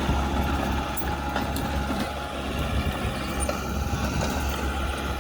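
Heavy diesel engine of earthmoving machinery running steadily with a low, even drone. A few faint clicks come about a second in.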